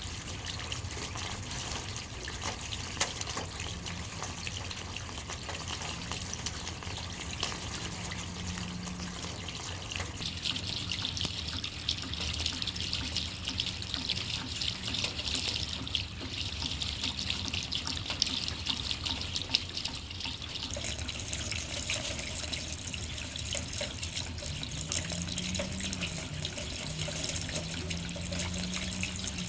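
Rainwater trickling and dripping into puddles: a steady, dense patter of small drops over running water.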